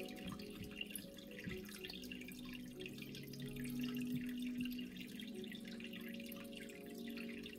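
Aquarium water trickling and dripping with a dense patter of small splashes, over a low steady hum.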